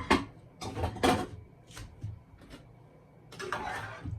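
Kitchen clatter as meats are transferred into a pot of cooked red peas: a series of sharp knocks of utensil against pot and dish, with a longer scraping stretch about three and a half seconds in.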